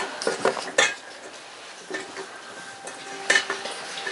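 Stainless steel puppy food bowl clanking on a wooden floor as a puppy pushes it about. Several quick clanks come in the first second, then a louder clank about three seconds in, each leaving a faint metallic ring.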